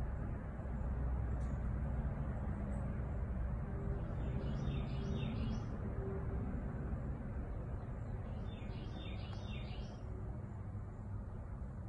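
A small songbird singing two short phrases of quick rising chirps, about four and nine seconds in, over a steady low background rumble.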